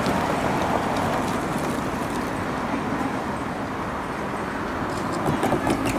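Road traffic at a level-crossing intersection: a steady noise of passing cars and tyres, with a few short clicks near the end.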